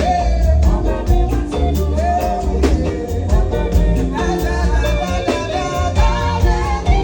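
Loud upbeat music with singing over a heavy bass line and a steady beat.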